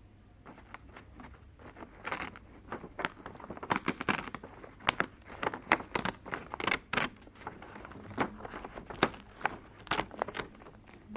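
Wrapping of a handmade advent calendar being crinkled and torn open by hand: irregular sharp crackles that start about half a second in and grow louder and busier from about two seconds in.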